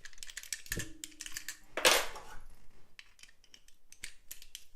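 Metal padlock and lock-pick tools being handled: a string of small metallic clicks and rattles, with one louder metal clank about two seconds in.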